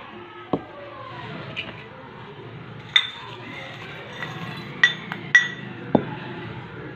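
Steel spoon striking and scraping a small stainless-steel bowl as food is tipped into a larger steel mixing bowl. Three sharp, ringing metal clinks come in the middle, and a couple of duller knocks come near the start and near the end.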